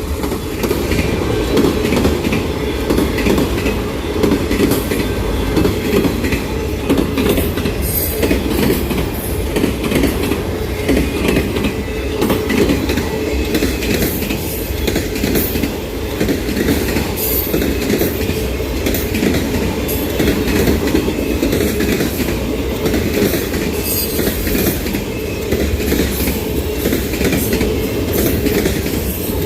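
Auto-rack freight cars rolling past: a steady, loud rumble of steel wheels on rail, broken by sharp clicks at irregular intervals.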